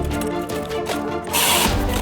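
Background music: pitched notes changing in steps, with a brief rush of noise near the end.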